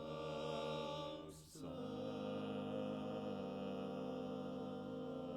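Barbershop quartet singing a cappella in four-part harmony: a held chord, a brief breath-break about a second and a half in, then a long sustained chord.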